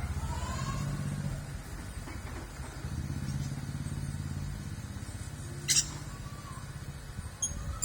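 A motor engine running steadily with a low hum, with a few faint bird chirps over it and one sharp click about three-quarters of the way through.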